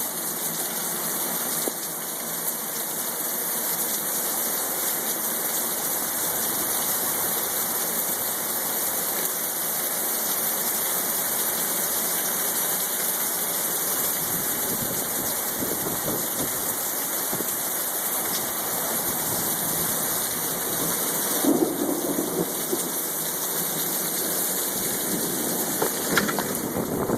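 Heavy rain pouring steadily. There are two brief louder sounds near the end.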